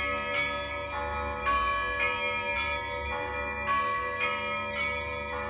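Bell-like tones ringing a steady, repeating melody, each note sustained and overlapping the next, over a low steady hum.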